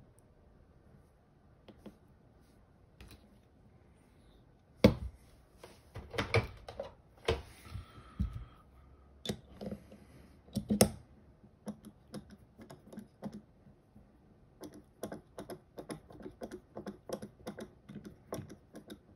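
Small metal clicks and knocks of a screw and hand tools being handled on a pistol slide, with sharper knocks about five and eleven seconds in. A quick run of light clicks follows as the red dot's mounting screw is turned in by hand, only hand-tight.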